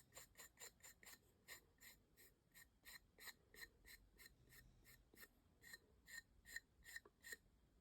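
Foam brush stroking a second coat of varnish onto a laser-cut wooden piece: faint, quick, even strokes, about three a second.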